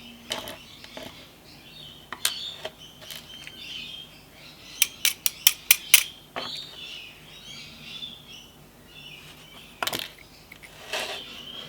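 Small sharp metallic clicks and taps of spool driver pins and springs being worked out of a Lockwood padlock's pin chambers, with a quick run of about six clicks near the middle.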